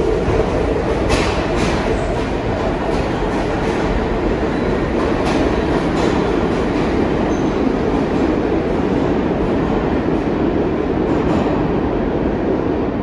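New York City Subway train running past at speed, a steady rumble with scattered clacks of wheels over rail joints.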